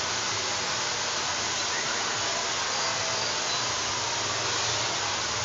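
Handheld hair dryer running steadily while hair is blow-dried.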